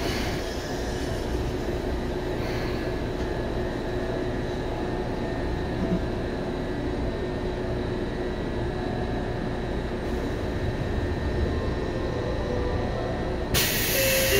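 Running sound from inside a Seibu 2000 series electric commuter train: a steady rumble of wheels and motors with a faint steady hum. A sudden hiss joins about a second before the end.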